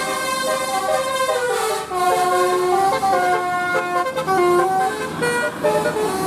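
Telolet bus horn playing a tune: several air-horn notes sounding together, held and stepping up and down in pitch like a melody.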